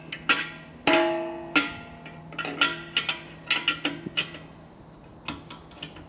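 Steel combination wrench clicking and clinking against the compressor's brass check valve fitting and the sheet-metal tank bracket as it is fitted, turned and repositioned to loosen the check valve. Irregular metallic knocks, some ringing briefly, thicker in the first few seconds and lighter toward the end.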